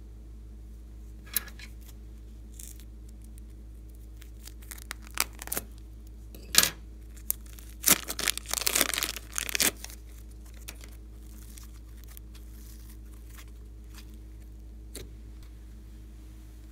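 Thin plastic piping bag crinkling and being torn and peeled off a lump of slime: a few scattered sharp crackles, then a dense burst of crinkling and tearing about eight seconds in.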